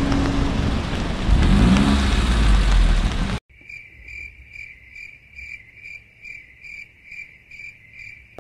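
Wet-street outdoor noise with traffic, including a vehicle passing about a second and a half in, cuts off suddenly about three and a half seconds in. A faint cricket-chirp sound effect follows: one high chirp repeated evenly, about twice a second.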